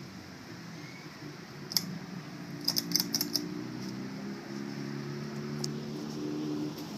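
A steady low machine hum, with a light sharp click about two seconds in and a quick run of clicks about a second later.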